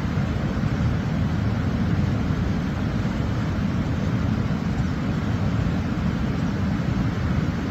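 Steady low rushing of falling water from a waterfall.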